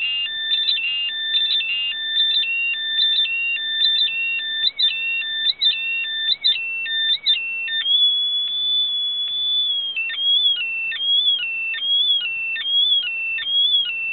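Homemade transistor two-tone siren circuit, its tone modulated by a third astable multivibrator fed into the driver transistor's base, producing strange new sounds: high electronic beeps jumping between several pitches in an irregular warbling pattern. About eight seconds in it settles into one steady tone, then turns into a repeating chirp with a short dip in pitch about every two-thirds of a second.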